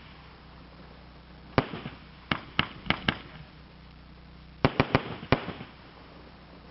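Shogun 'Well Equipped' multi-shot aerial cake firing: sharp bangs as its shots go up and burst. One bang comes about a second and a half in, a quick run of four follows about a second later, and another tight group of four comes near the end.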